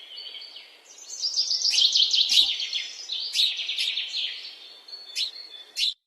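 Birds chirping in a dense chorus of fast trills and chirps, with a few short, sharp single calls near the end. A faint background hum stops abruptly just before the end.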